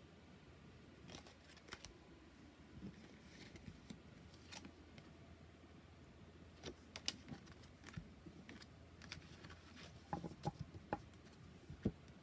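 Oracle cards being handled: faint scattered clicks and taps of card stock, growing busier near the end.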